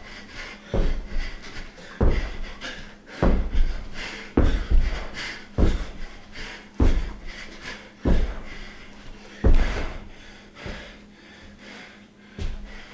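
A person's heavy breathing, laboured by illness: strong breaths about once a second that ease off in the last few seconds.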